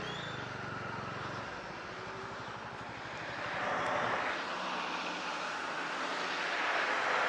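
Motorcycle running at low speed: a low engine hum under a steady rushing noise on the rider's microphone, which swells about four seconds in and again near the end.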